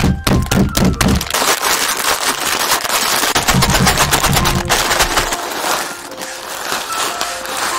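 A block of dried Shin Ramyun instant noodles crushed by hand inside its sealed plastic packet: rapid crackling and snapping of the brittle noodles with crinkling of the wrapper, hardest in two spells of squeezing. Near the end the crackle thins to a lighter rattle as the broken pieces are tipped into a bowl.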